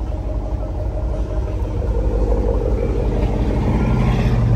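A motor running with a steady low hum that grows louder in the second half.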